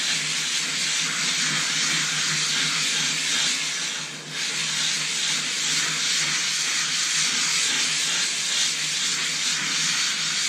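Silicon carbide sharpening stone rubbed over a wet lapping plate with loose 220-grit abrasive, making a steady scratchy rubbing sound with one brief dip about four seconds in. This is the final, very light conditioning pass under just the stone's own weight, which leaves a fresh, sharp cutting surface on the stone.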